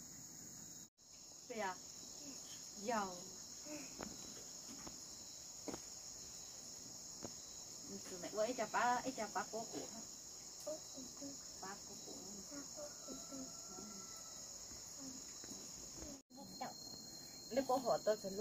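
Steady, high-pitched chorus of crickets, briefly cut off twice: about a second in and near the end. A few short, louder pitched sounds come over it, the loudest cluster about halfway through.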